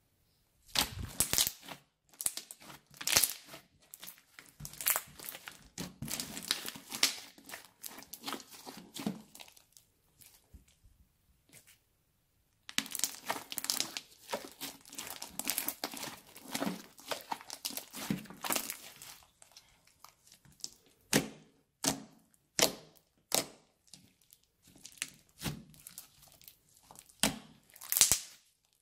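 Crunchy slime with small beads mixed in, stretched, squeezed and kneaded by hand, giving runs of crackling and popping. There is a pause of about three seconds near the middle, and the last third holds sharper, more separate pops.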